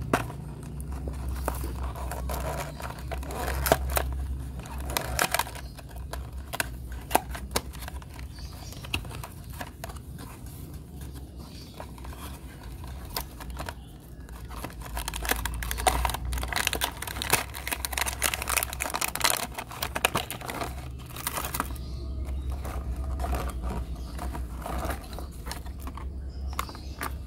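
Cardboard box and plastic packaging being handled and opened: irregular crinkling and rustling with scattered small taps and clicks, over a low steady rumble.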